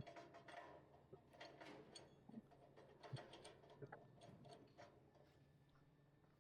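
Near silence: faint, irregular clicks and ticks over a low steady hum.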